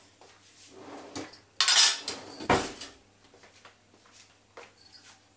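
Kitchen utensils clattering: a short noisy burst about one and a half seconds in, then a knock, with a few faint clicks afterwards.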